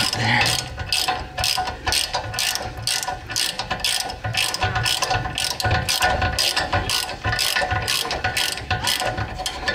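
Hand ratchet wrench clicking steadily, about three clicks a second, as a rear shock bolt is turned by hand.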